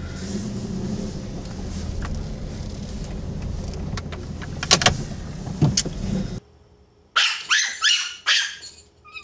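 Steady low hum inside a moving car's cabin, with a few sharp clicks about five seconds in. It cuts off abruptly, and near the end a Pomeranian left home alone barks in a quick run of about six high-pitched yaps.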